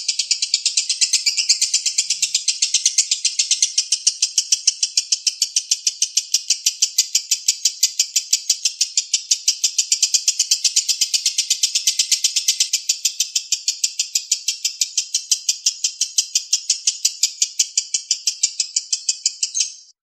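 Lovebird chattering in a long unbroken 'ngekek', a fast string of sharp 'kek kek kek' notes at about six or seven a second, the continuous 'konslet' style of ngekek. It stops abruptly near the end.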